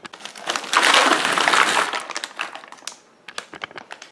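Cut green beans poured into an aluminium foil pan: a dense rattling patter of beans hitting the foil for about two seconds, then a few scattered clicks as the last ones drop.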